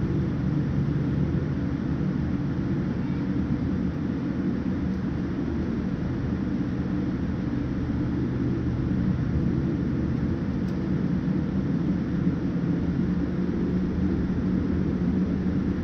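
Steady rumble and hiss of a Boeing 787-9's GEnx engines and airframe heard from inside the cabin during the takeoff, growing slightly louder near the end.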